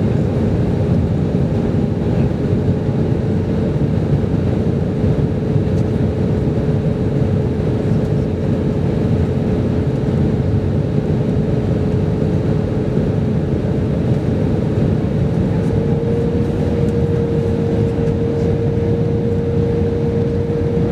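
Airbus A320 cabin noise heard from a seat over the wing on approach: the steady rush of airflow and the jet engines running, with a steady hum that rises slightly in pitch twice, the second time about three quarters of the way through.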